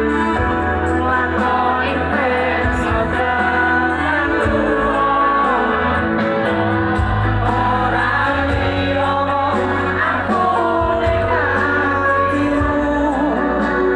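Live concert music through a loud PA: a singer over a band, with a heavy, boomy bass.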